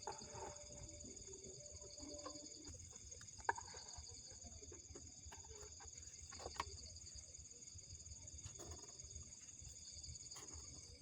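Faint steady high-pitched insect chorus, with a few isolated sharp taps about a third and two-thirds of the way through.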